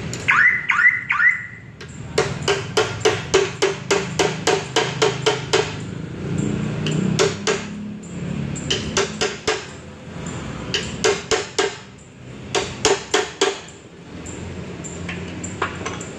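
Hand tool striking the steel end of a car's steering rack in quick runs of ringing metal taps, about four a second: first a long run of about fourteen, then four short runs with pauses between. A few short high squeaks come just before the first run.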